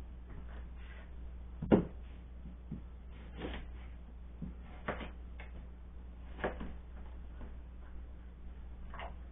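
Knife cutting apple on a plastic cutting board: a handful of separate knocks, the loudest about two seconds in, over a steady low hum.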